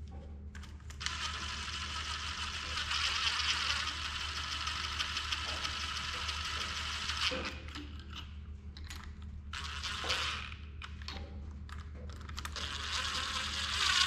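Cordless power driver spinning a socket on an extension, running down the rocker shaft bolts on a cylinder head. There is one long run from about a second in to about seven seconds, a few short bursts after it, and another run near the end.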